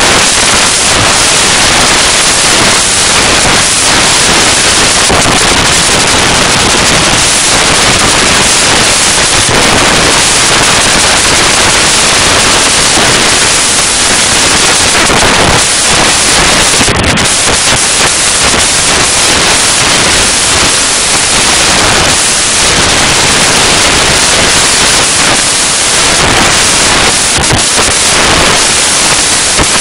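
Loud, steady hissing and crackling noise with no clear source.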